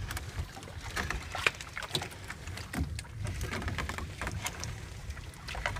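Fishing net being hauled by hand into an outrigger boat: scattered clicks, ticks and small splashes of the wet mesh and its floats against the hull, over a steady low rumble of wind and water. One sharper knock comes about a second and a half in.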